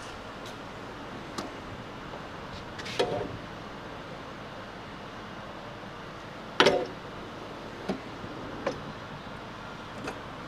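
Metal drawers of a Matco tool box being slid and knocked shut: two louder clunks, one about three seconds in and one past six seconds, with lighter clicks between, over a steady background hiss.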